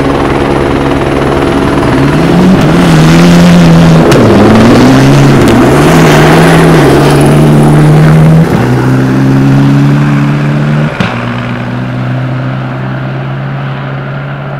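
Rally car engine revving hard through a series of gear changes, its pitch repeatedly climbing and dropping, loudest between about two and eight seconds in. Under it, a helicopter's rotor and engine drone steadily throughout.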